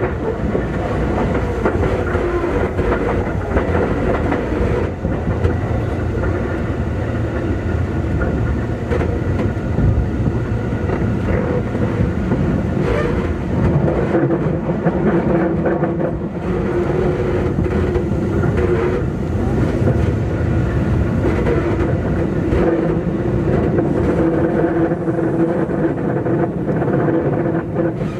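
Inside a Keikyu 2000 series motor car (DeHa 2052) running at moderate speed: steady rumble with a constant hum from the traction motors, which the uploader thinks are Mitsubishi-made, and wheels clicking over rail joints now and then.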